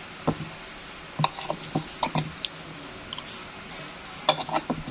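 Eating utensils clicking and clinking against dishware in short, irregular knocks, with a quick cluster near the end.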